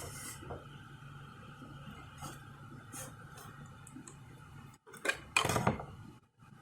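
Light clicks and clinks of small hard parts over a faint steady hum, with a louder clatter about five seconds in.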